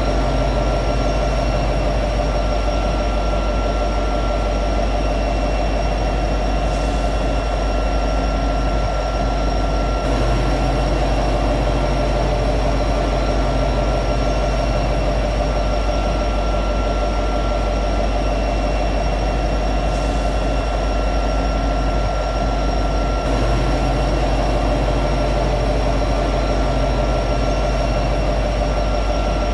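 EMD SD70ACE diesel-electric locomotive running steadily at high idle, its big diesel giving a constant drone with a steady high whine over it.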